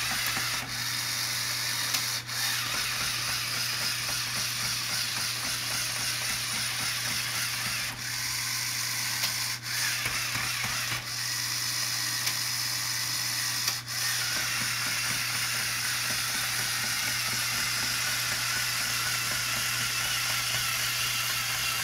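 Lego Power Functions XL motor running the plastic gear train and tracks of a Lego Technic tank as it drives, a steady mechanical whir with gear chatter. The sound dips briefly several times.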